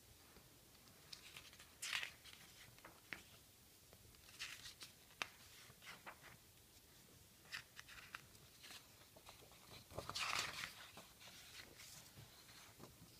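Magazine pages being turned by hand: a series of short, faint paper rustles and swishes, the longest and loudest about ten seconds in.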